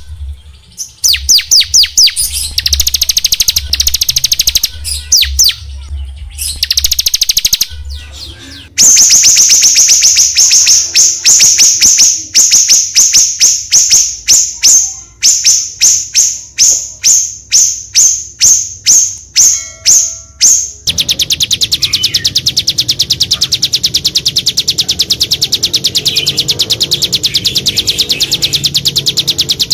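Small songbirds' high-pitched calls from an edited, mastered bird-song training recording, spliced in three sections. First come stuttering trills, then from about 9 s a run of sharp repeated notes roughly two a second, and from about 21 s a fast, unbroken trill.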